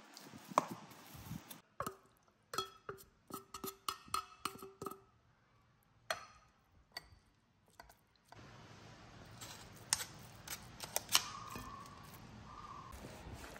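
A metal utensil knocking against a glass mixing bowl while mashing boiled potatoes, several of the knocks leaving a brief ring. Later come sparser taps and scrapes of a spoon working canned tuna.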